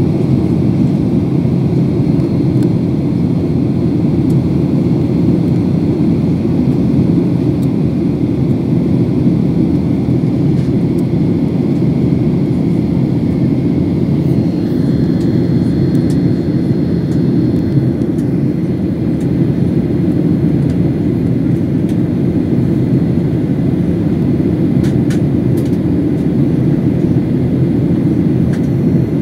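Steady cabin noise of a jet airliner in cruise flight: the deep, even rush of engines and airflow. A faint high whine comes in about halfway and fades a few seconds later.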